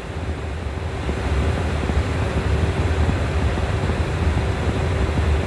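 Steady airflow and engine noise inside an Airbus airliner in descent: a deep rumble under a rushing hiss, with a faint steady hum.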